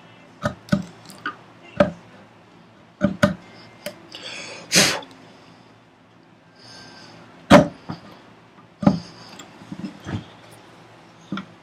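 Hand tools working wood, likely chisel paring to clean up a dado: a series of sharp clicks and knocks, with a short scraping cut about five seconds in.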